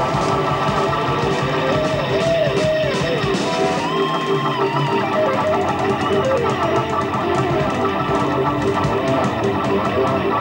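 A slow blues played live on Hammond B3 organ, electric guitar and drums. Lead lines bend up and down in pitch over held organ chords and steady drum strokes.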